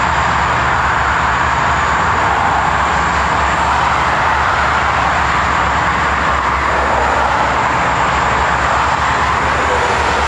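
A pair of EMD diesel locomotives passing close by, their engines running with a steady low rumble. This blends with continuous highway traffic noise.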